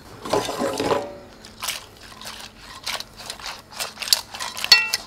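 Linguine with mussels and clams being tossed in a stainless steel sauté pan: the shells clatter and click against the metal in quick irregular knocks, with a short ringing metallic clink near the end.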